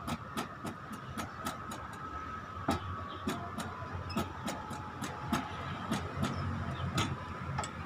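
Outdoor park exercise machine worked by its overhead handles, giving irregular sharp clicks, about two or three a second, over a low mechanical rumble.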